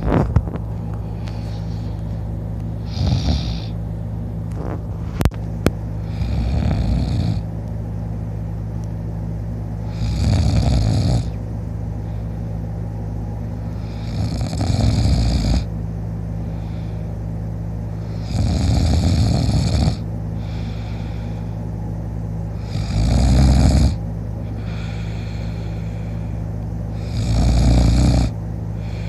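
A man snoring in his sleep, lying on his back with his mouth open: a loud rasping snore about every four seconds, over a steady low hum.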